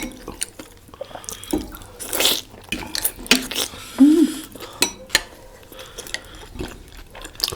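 Close-miked eating of juicy momos: wet, liquid mouth sounds and slurps, with sharp clicks of cutlery and dishes. A short hum is heard about four seconds in.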